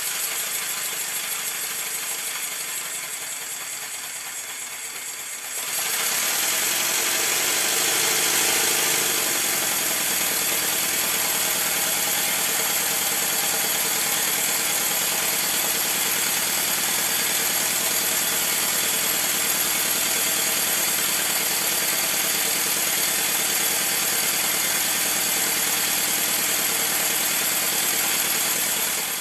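Stuart Score twin-cylinder model mill engine running on compressed air on a test run after its rebuild, a steady hissing run of exhaust air and moving parts. It steps up louder about five and a half seconds in, then runs on evenly.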